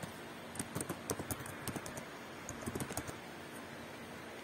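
Computer keyboard keys clicking in quick, irregular runs as an email address is typed, thinning out in the last second or so.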